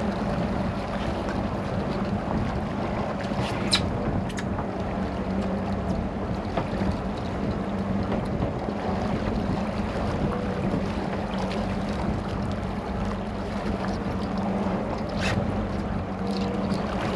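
Boat engine running with a steady low hum, under wind and water noise. There are a few sharp clicks about four seconds in and again near the end.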